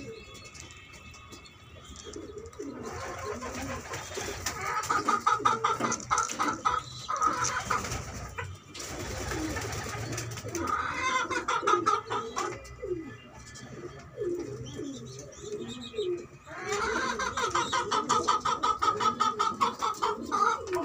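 Domestic pigeons cooing and calling in three long stretches of rapid, pulsing calls, with quieter gaps between them.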